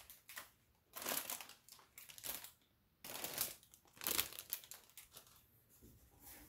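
Plastic packaging crinkling as it is handled, in about five short bursts over the first four and a half seconds, then quieter.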